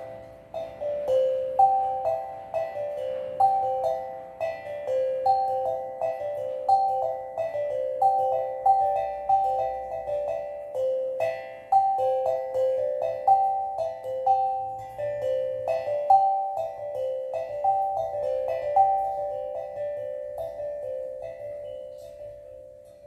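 Steel tongue drum played freely, a steady flow of struck notes ringing into one another, several a second, within a narrow range of pitches. The playing grows softer near the end.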